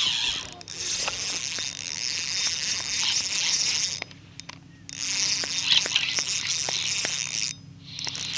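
Spinning reel whirring in long stretches of several seconds, with faint clicks, as a hooked smallmouth bass is fought. A faint steady low hum runs underneath.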